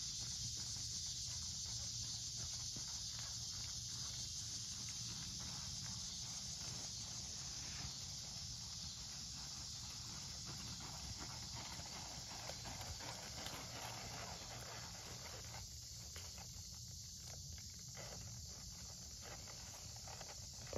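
Haflinger horse walking on a sand arena, its hoofbeats soft and muffled, over a steady high hiss.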